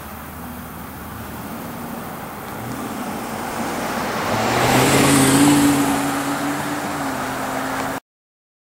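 A car approaching along the highway and passing close by, its engine hum and tyre noise swelling to a peak about five seconds in and then fading away. Near the end the sound cuts off suddenly.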